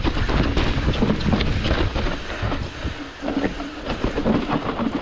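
Hardtail mountain bike rattling down a rough, bumpy dirt trail: tyres rumbling over roots and rocks, with the chain and frame clattering and wind rumbling on the microphone.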